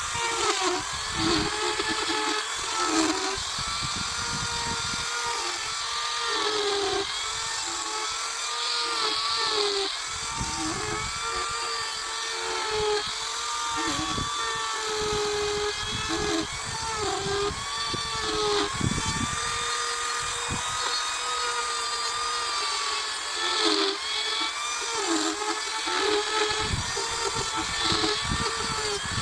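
Carving chainsaw running and cutting into wood, its engine pitch rising and falling continually as the throttle is worked.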